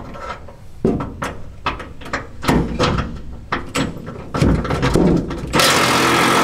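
Hand-tool work on a pickup truck's underbody: a string of sharp metal clicks and clanks. About five and a half seconds in, a loud steady rushing noise starts.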